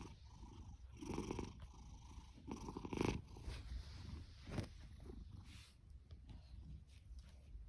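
Domestic cat purring, the rasping purr swelling and easing with each breath about every second and a half, growing fainter after about five seconds.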